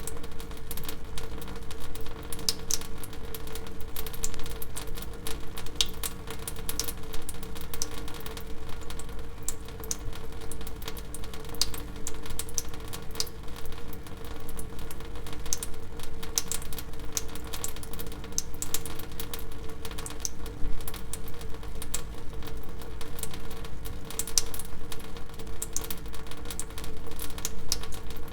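Water dripping: many quick, irregular clicks of falling drops, several a second, over a steady low hum.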